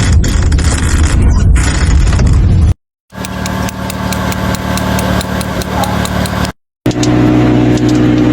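Three short car-noise samples cut together. First a loud low rumble, then a car engine running with a rapid, regular ticking, then an engine running steadily. Each is an abnormal car noise played for diagnosis.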